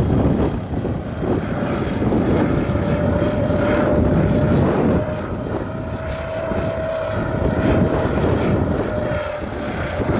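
Drone carrying a full payload flying: its propeller drone holds one steady pitch, with wind rumbling on the microphone underneath.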